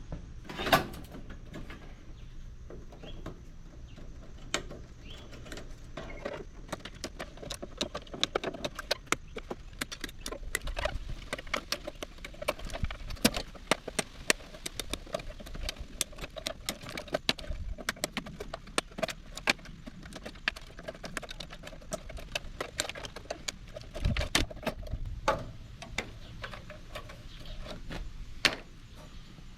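Wire cutters snipping the wiring out of a PTAC air-conditioner unit: a long run of sharp clicks and clacks as wires are cut and pulled free against the metal, thickest in the second half, with a louder flurry a little past the middle.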